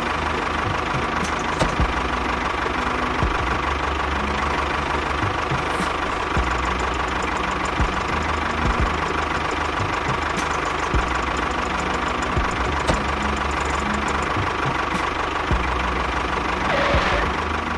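Tractor engine idling steadily with a knocking chug.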